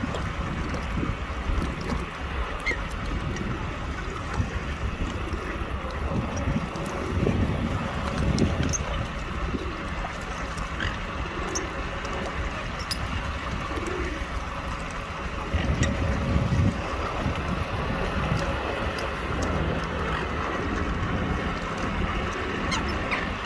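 Steady low outdoor rumble of wind and background noise by the water, with a few short, high bird chirps scattered through it.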